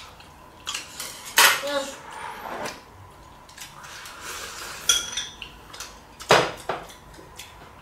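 Spoons and chopsticks clinking against ceramic bowls while eating: a handful of sharp clinks, the loudest about a second and a half in and again past six seconds.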